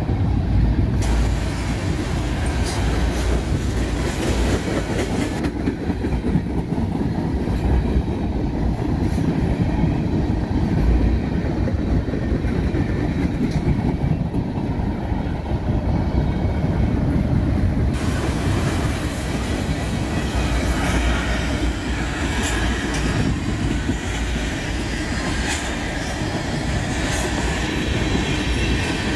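Canadian National freight train's cars rolling past at a grade crossing: a steady low rumble with wheels clicking over rail joints. A sharper, higher metallic clatter joins about two-thirds of the way through.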